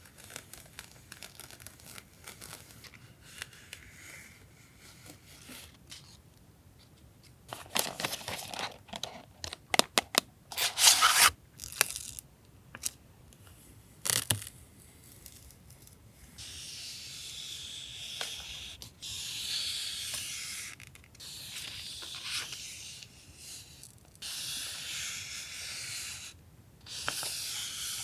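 Masking tape being pulled off the roll and torn by hand. A flurry of sharp crackly tearing sounds comes about eight to twelve seconds in, then several long, steady unrolling pulls of a few seconds each in the second half.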